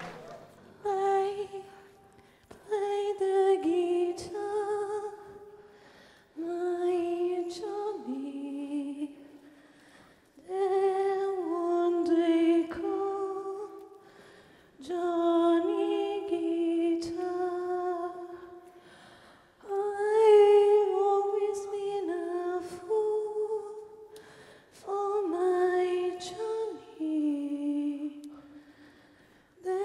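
A woman humming a slow wordless melody unaccompanied, in phrases of two to four seconds with short pauses between them.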